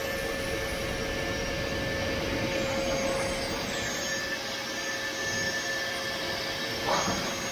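Electric vacuum run in reverse as an air blower, running steadily with a constant whine over the rush of air.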